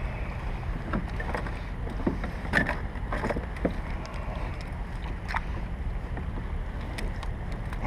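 Water splashing and lapping around a kayak, with scattered light knocks and splashes over a steady low rumble of wind on the microphone.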